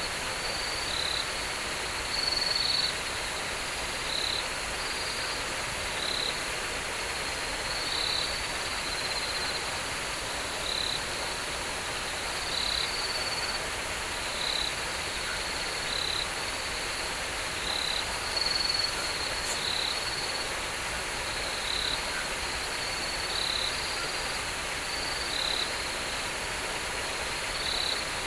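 Night forest ambience: a steady hiss with a short, high-pitched call repeating irregularly about every one to two seconds, typical of calling frogs or insects after dark.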